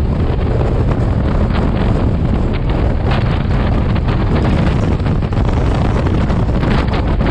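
Wind buffeting the microphone and the steady rumble of a Shatabdi Express running at speed, heard from outside the coach door, with scattered faint clicks through the rush.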